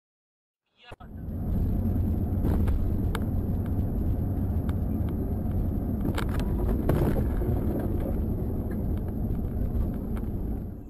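Steady road and engine rumble of a car driving along a highway, as heard by a dash cam inside the cabin, with a few light ticks along the way. It cuts in suddenly about a second in, after silence.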